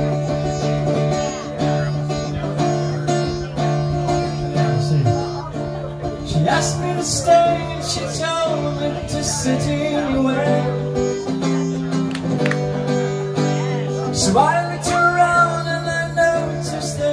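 Nortune cigar box guitar played as a song's instrumental break, a steady low drone note under changing higher notes. A wordless voice wavers over it for a moment in the middle and again near the end.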